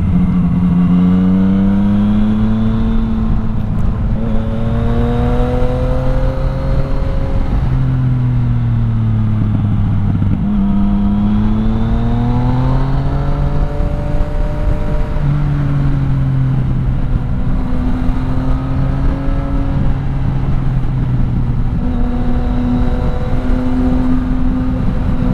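Yamaha MT-09 Tracer 900's three-cylinder engine through an Akrapovic exhaust, pulling and easing off on the road. Its note rises and falls in pitch several times over a steady rush of road and wind noise.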